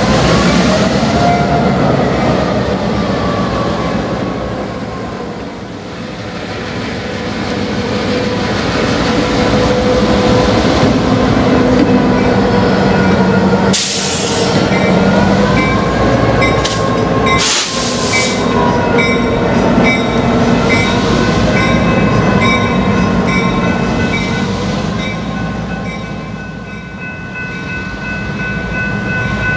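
Diesel freight locomotives rolling slowly past at close range, engines running, with wavering wheel-squeal tones over the rumble. Two brief loud noises come about halfway through.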